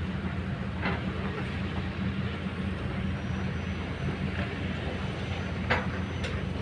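Kobelco excavator's diesel engine running steadily as it works its boom and bucket, with a few sharp knocks about a second in and twice near the end.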